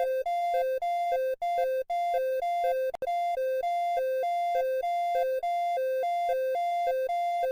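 Emergency alert system alarm: a buzzy electronic two-tone signal switching rapidly between a higher and a lower pitch, about two cycles a second. There is a brief click and break about three seconds in.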